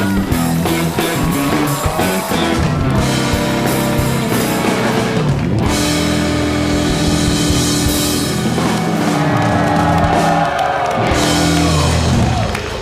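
Studio house band playing rock walk-on music with drum kit and electric guitar, stopping shortly before the end.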